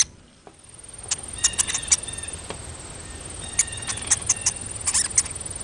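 Quiet outdoor nature ambience: a low hiss with scattered short chirps and clicks, and a faint steady high tone.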